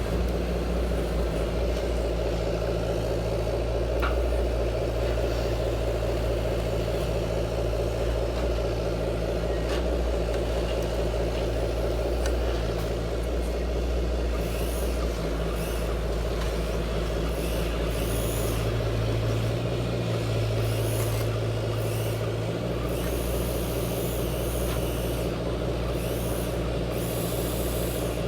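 Radio-controlled model construction machine running with a steady low hum, with short hisses repeating through the second half.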